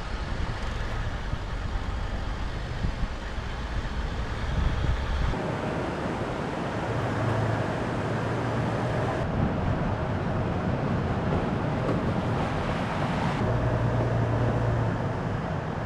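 Vehicle driving, with steady engine and road noise that changes abruptly a few times.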